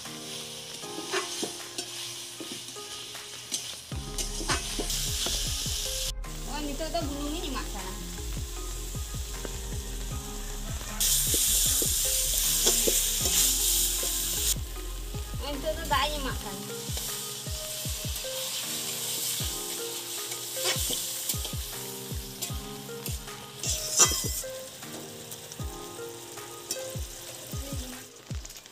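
Spiced potato chunks sizzling in hot oil in a metal wok over a wood fire, stirred and scraped with a spatula. The sizzle grows louder for a few seconds near the middle, and there is one sharp clack about 24 seconds in.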